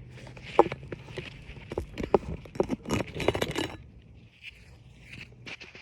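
Gritty scraping and sharp clicking on asphalt roof shingles, a burst of crackling taps lasting about three seconds before it quietens, with granules popping and grinding on the shingle surface.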